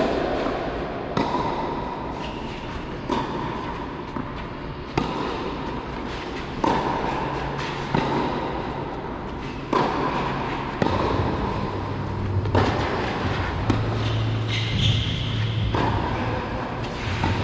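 A tennis rally on clay: a ball struck back and forth by racquets, about a dozen sharp hits one every second and a half or so, each with a ringing echo from the hall.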